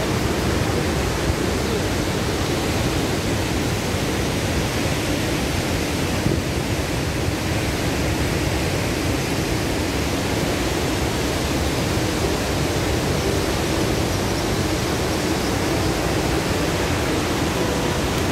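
Large waterfall in full flow after rain, a steady rush of heavy falling water.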